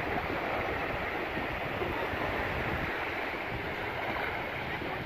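Low surf washing steadily onto a sandy beach, with wind buffeting the microphone.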